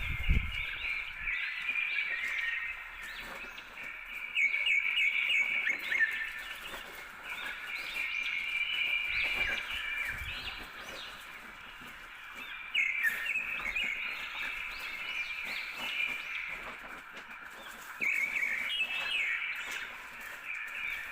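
Birds chirping and singing continuously outdoors, in trilling phrases a few seconds long, with a brief low rumble about nine seconds in.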